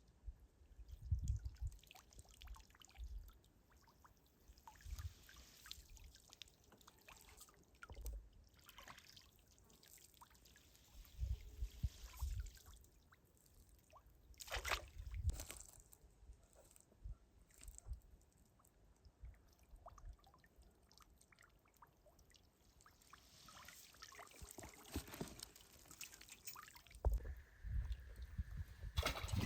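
Water trickling, dripping and splashing on and off, with scattered low thumps.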